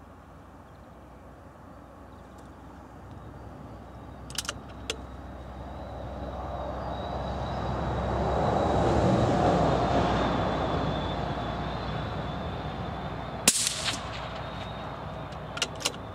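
A vehicle passes by, rising and fading over several seconds. About two-thirds of the way through comes a single sharp crack, a .17 HMR rifle shot through the chronograph. Light clicks come twice before it and twice just after.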